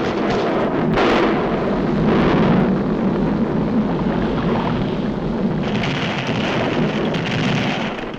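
Cartoon sound effects of an erupting volcano: a continuous heavy rumble with blasts, and a higher hiss joining in about two-thirds of the way through.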